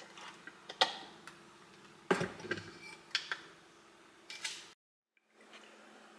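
Clicks and light knocks from a ceramic essential-oil diffuser being handled on a stone counter, its cover fitted back onto the base. The sound drops out briefly about five seconds in, and a faint steady hum follows.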